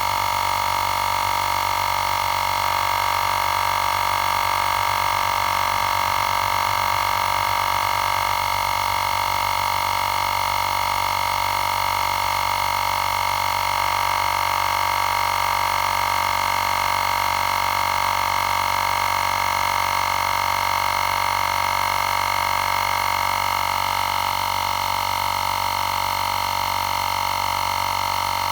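Xiaomi Portable Electric Air Compressor 2 running steadily as it pumps up a nearly flat spare tire, its motor and piston pump giving an unchanging high-pitched hum.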